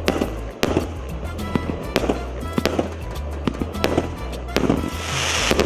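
C204 49-shot firework cake firing in sequence: a sharp bang about every half second as the shells launch and burst, with a denser crackle near the end. A steady bass line of background music plays under it.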